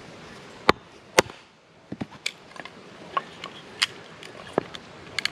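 Two sharp knocks of a wooden baton striking the spine of a knife driven into a green log, followed by a run of lighter clicks and snicks as the knife cuts and carves the wood.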